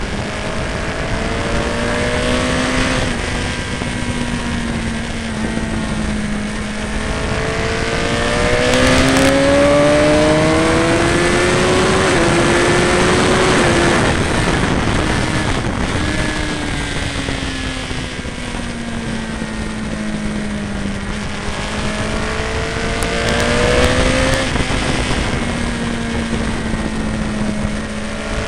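Sportbike engine heard onboard at track speed under wind rush: its pitch climbs for several seconds through gear changes, sags for several seconds as it slows, then climbs and drops again near the end.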